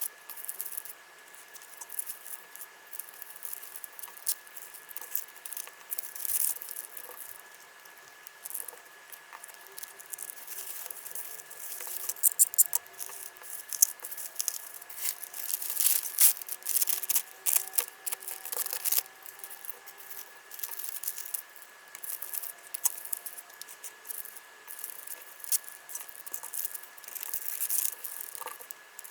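Hands packing small orders: plastic wrapping and packing material crinkling and rustling, with scattered small clicks and taps, busiest in the middle.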